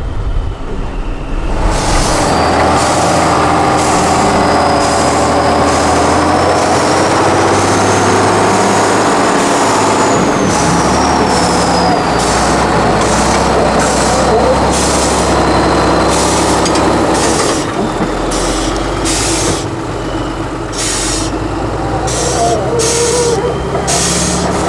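Tatra 8x8 trial truck's diesel engine working hard under load, with a thin high whistle that rises and then falls and many short hissing bursts.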